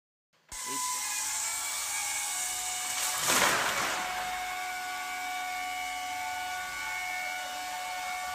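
Workshop machinery running with a steady whine of several held tones over a bright hiss, swelling into a louder rush about three seconds in.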